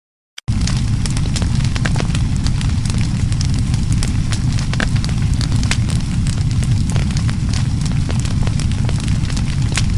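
Fire burning, beginning sharply about half a second in after silence: a steady low rumble of flames with dense, irregular crackles and pops over it.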